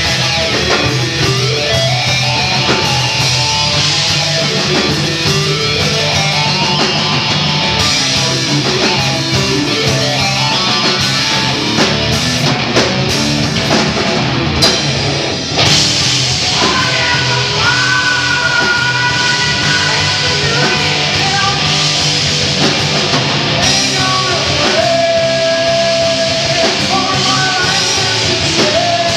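Rock band playing live: electric guitar, bass guitar and drum kit, with long held notes over the band in the second half.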